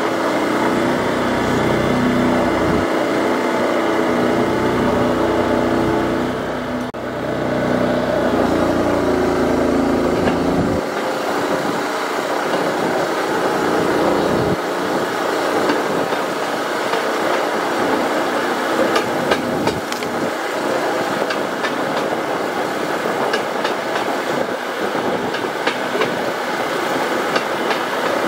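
Motor trolley (draisine) riding on narrow-gauge rails: its engine runs steadily, with a brief dip about seven seconds in, and its note fades after about eleven seconds. From then on the wheels' clatter and sharp clicks over the rail joints and switches carry the sound.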